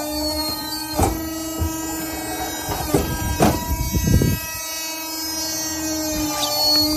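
Comafer Dynamic 110S briquetting machine running: a steady droning whine with several pitches, broken by sharp clunks and knocks about a second in and again around three and a half to four seconds in.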